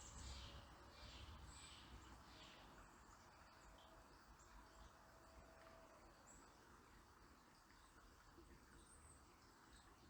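Faint, steady river murmur. Over it a small bird gives a run of short high chirps about every half second for the first two or three seconds, then a few thin, very high notes.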